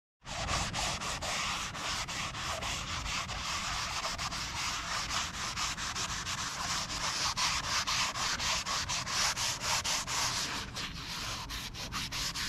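A hand-held sanding pad scrubbed back and forth over the painted cast-iron housing of a Morris Mor-Speed drill press, prepping it for paint. It makes a steady scratchy rasp of quick strokes, and the strokes come faster toward the end.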